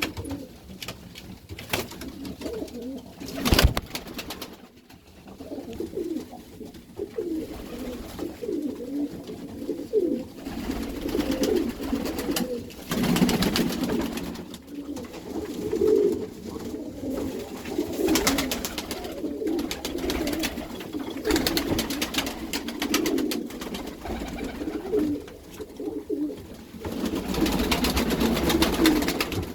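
A loft of Iranian domestic pigeons cooing, many birds overlapping continuously in a small room. A sharp knock comes about three and a half seconds in, and stretches of noisy rustling come and go.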